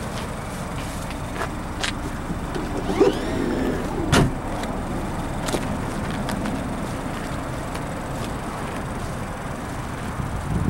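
Rear liftgate of a 2013 Ford Escape closing: a short rising whine, then the gate shuts with a single loud thud about four seconds in. A few light clicks come before it.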